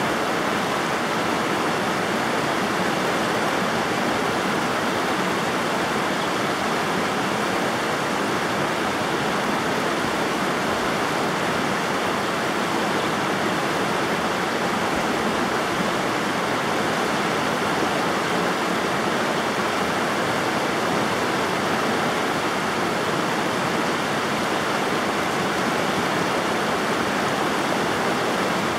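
River water rushing steadily over rocks, an even, unbroken flow.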